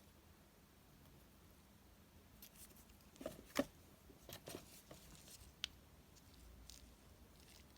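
Faint handling noises in near silence: a cluster of soft clicks and rustles from about two and a half to nearly six seconds in, the sharpest click a little past halfway.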